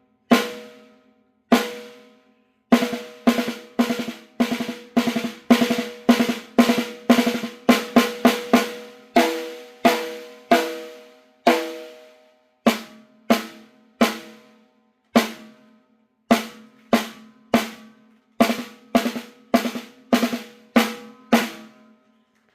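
A 14x4 seamless acrylic piccolo snare drum with an Aquarian head, tuned tight, struck with a stick for a tone check: single hits, each ringing on with a clear pitch before it dies away. The hits come slowly at first, quicken into a run of strokes, then space out again.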